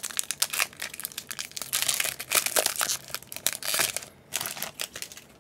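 A Yu-Gi-Oh! Maximum Gold booster pack being opened by hand: a dense run of crinkling and crackling of the wrapper that dies down about four seconds in.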